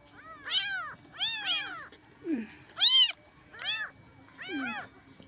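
Very young kittens crying, about six short high mews that rise and fall in pitch, the loudest about three seconds in. This is the hungry crying of orphaned kittens calling for milk.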